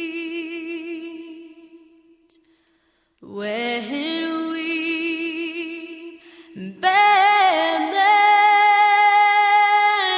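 A song with a female voice holding long notes with vibrato. The note fades out about two seconds in, and after a short silence the singing comes back, rising to a louder sustained note about seven seconds in.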